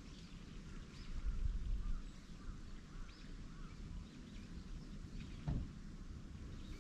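Small birds chirping in short, scattered calls over a low outdoor rumble that swells about a second in, with one soft knock about five and a half seconds in.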